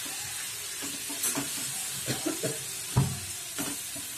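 Chilli-sauce masala sizzling in oil in a white-coated frying pan, with a steady hiss, while a wooden spatula stirs it. The spatula knocks and scrapes against the pan several times, loudest about three seconds in.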